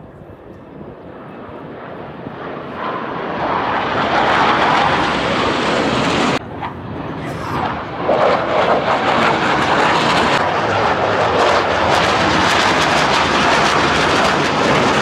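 Jet noise from the Black Eagles' KAI T-50B jet trainers flying past. The roar swells over the first few seconds, drops sharply about six seconds in, then comes back loud and stays loud as another pair of jets passes low.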